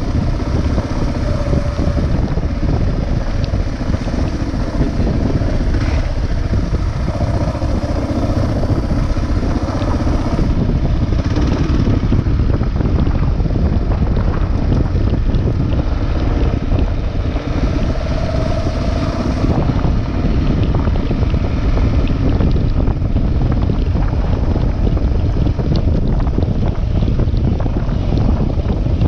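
Kawasaki KLR650's single-cylinder four-stroke engine running under way on a dirt track, buried in heavy wind buffeting on the microphone.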